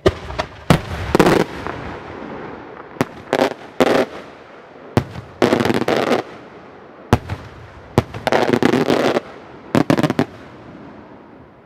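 Daytime firework display: cylindrical aerial shells bursting overhead. Sharp single bangs alternate with dense rattling volleys of many small reports, repeated several times, over a rolling echo.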